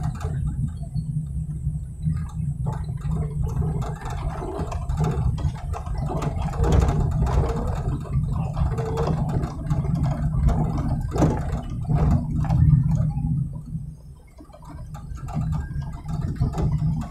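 Off-road jeep driving slowly over a rough, stony dirt track: a steady low engine and road rumble with scattered knocks and rattles from the bumpy ride.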